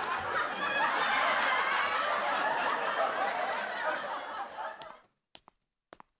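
Canned sitcom laugh track: an audience laughing after a punchline, fading out about five seconds in, followed by a few faint clicks.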